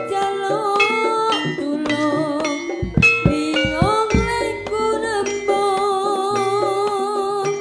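Live Javanese jaranan music: gamelan-style struck metal tones and drums under a sustained, wavering melody line, with a few deep drum strokes about halfway through.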